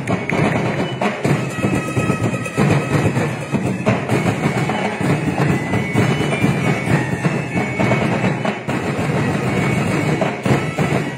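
Live drum ensemble playing a busy, driving percussion beat for a festival dance, with many rapid drum strokes; it cuts off abruptly at the very end.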